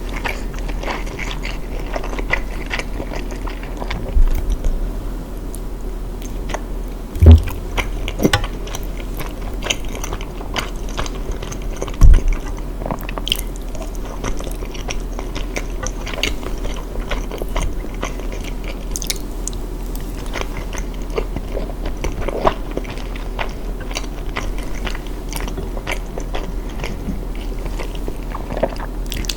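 Close-miked biting and chewing of crunchy chocolate chip cookies, with many small crisp crunches. Two loud low thumps come about 7 and 12 seconds in, over a steady low hum.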